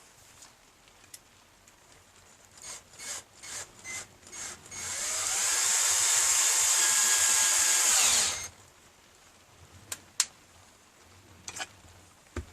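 Cordless drill driving a pocket-hole screw: a few short trigger blips, then one steady run of about three seconds that spins up at the start and stops suddenly. A few light knocks follow near the end.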